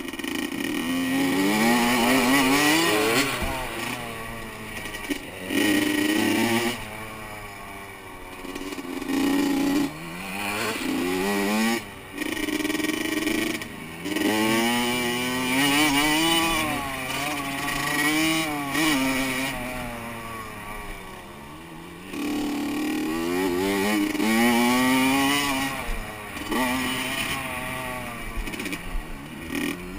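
Honda CR85 two-stroke dirt bike engine heard from the rider's helmet, revving hard and falling off over and over: the pitch climbs, breaks at each gear change or throttle lift, then climbs again through the corners and straights of a dirt track.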